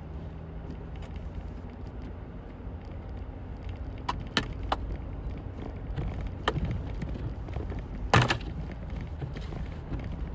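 Jeep engine running steadily at low speed as it drives up a snowy driveway. A few sharp clicks come about four to five seconds in, and a louder crack about eight seconds in.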